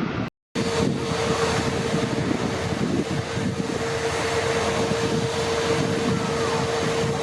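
Jet airliner engines running: a steady rush with a steady hum, after the sound drops out completely for a moment about half a second in.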